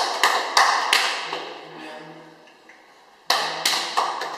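Hands smacking together in quick sharp slaps, each ringing briefly off the tiled walls: a run of four in the first second, a pause, then another run starting about three seconds in.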